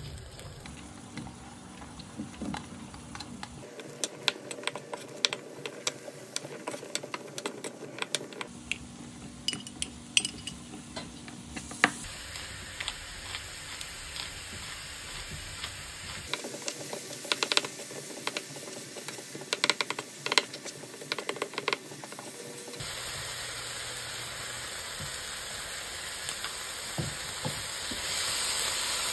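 Eggplant and ground pork sizzling in an oiled nonstick frying pan, with a wooden spoon clacking and scraping against the pan as the food is stirred, and a pepper mill ground briefly partway through. The sizzle grows louder and denser near the end as sauce goes into the pan.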